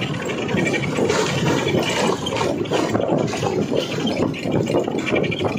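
Steady engine and road noise of a moving vehicle, heard from inside it.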